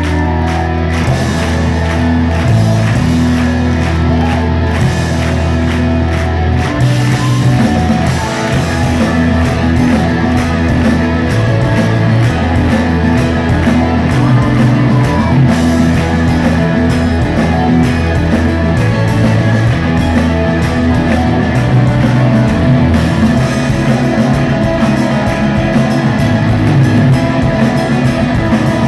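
Live rock band playing: acoustic guitar, electric guitar, bass and drums. Sustained bass notes carry the first few seconds, and the playing gets denser about seven seconds in.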